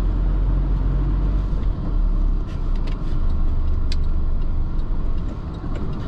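Car engine and road noise heard from inside the cabin while driving, a steady low rumble with a few light clicks.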